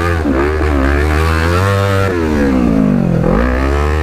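Kawasaki H2 sportbike engine revving under a rider's throttle, its pitch wavering and climbing, dropping off for about a second from around two seconds in, then rising again near the end, over a steady low rumble.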